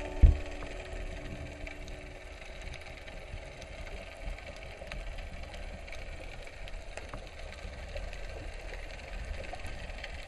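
Underwater ambience picked up by a submerged camera: a steady low rumble with scattered faint clicks, and a single thump just after the start.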